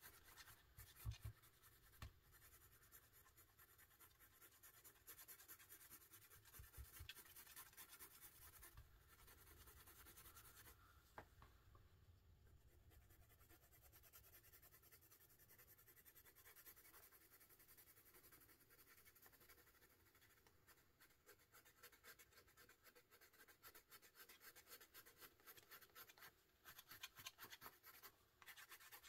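Faint scratching of a soft-core colored pencil stroked lightly back and forth on coloring-book paper. The strokes grow quicker and stronger in the last several seconds.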